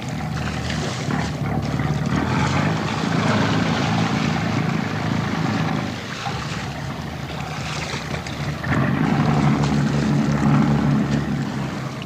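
A motorboat's engine running with a low drone that swells twice, over rushing and splashing water as a leatherback turtle thrashes at the surface beside the boat.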